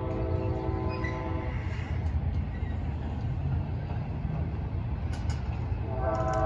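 Locomotive air horn sounding a multi-note chord, cutting off about a second and a half in, over the steady low rumble of a passing double-stack container train. The horn sounds again near the end.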